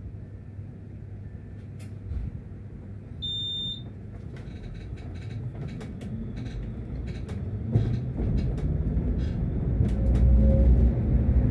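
Tram running: a short high electronic beep sounds once, then the tram's low running rumble builds steadily louder as it gathers speed, with scattered clicks and knocks from the wheels on the track.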